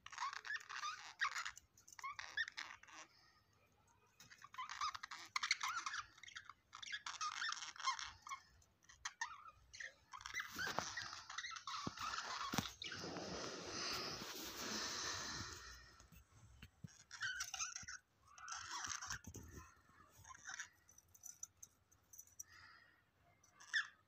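Pet budgerigars chirping and squeaking in short, repeated bursts, with a few seconds of rustling noise about halfway through.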